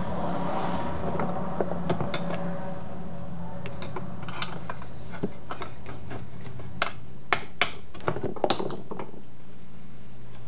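Irregular metal clicks and knocks as a recoil pull-start assembly is handled and fitted onto a Briggs & Stratton small engine, over a steady low hum.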